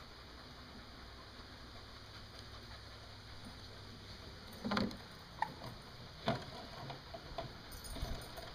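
Hard plastic parts of a children's playset, a toy telescope and a ship's steering wheel, knocking and clattering as a child handles and turns them: a few separate knocks from about halfway through, over a steady background hiss.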